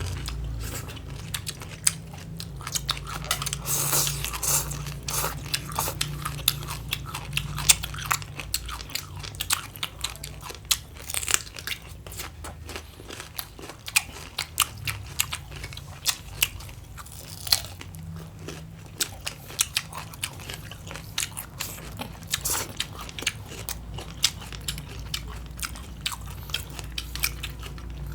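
Close-miked chewing and biting of crunchy raw green papaya salad and cucumber: many irregular sharp crunches, with a steady low rumble beneath.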